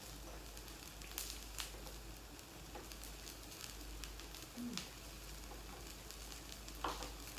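Quiet eating sounds: a few sharp clicks of chopsticks against ceramic bowls over a faint steady hum, with a brief low murmur of a voice about two-thirds of the way through.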